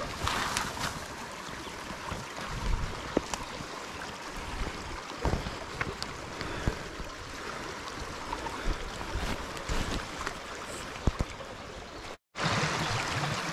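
Footsteps and the rustle of grass and brush as someone walks, with scattered light knocks, over a steady rushing hiss. Near the end the sound cuts out for a moment, then a louder steady rush of shallow creek water running over rocks.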